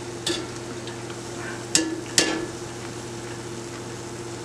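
Zeppole dough frying in vegetable oil heated to about 370°F, a steady sizzle over a low hum. A wire spider skimmer turning them clicks sharply against the enamelled pot three times.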